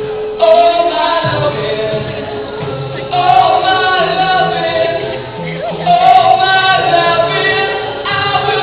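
A cappella group singing: a lead voice holding long notes over sung backing harmonies, with no instruments.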